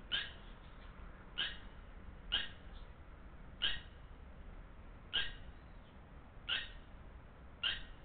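Red-wattled lapwing calling: seven short, sharp single notes in a row, each a little over a second apart.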